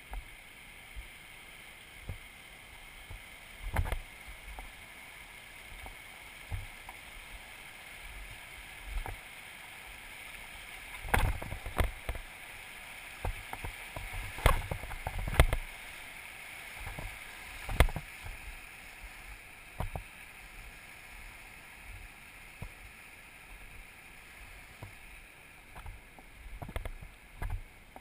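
Irregular footsteps and knocks of the camera being carried along a dirt and rock trail, the loudest in the middle, over the steady rush of a creek.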